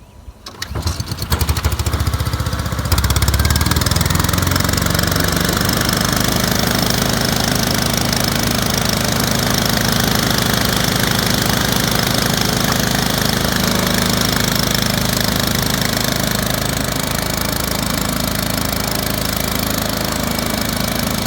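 A 5.5 horsepower Honda single-cylinder engine on a mist blower starts about half a second in and speeds up, jumping louder about three seconds in. It then runs steadily at speed, driving the squirrel-cage fan with a loud, even rush of air.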